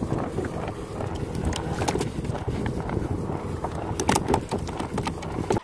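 Water sloshing and splashing in a kayak's pedal-drive well, with scattered small knocks and clicks.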